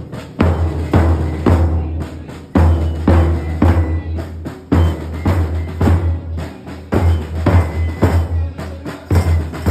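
Marching band drums playing a steady march: bass drum and snare beats, about two strokes a second.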